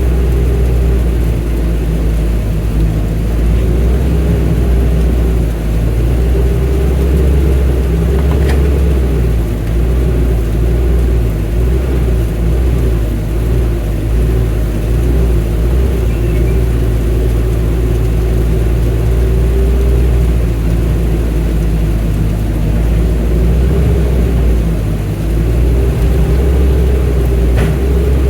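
Excavator's diesel engine running steadily under load, with a deep rumble and a higher droning tone above it that rises and falls slightly as it works.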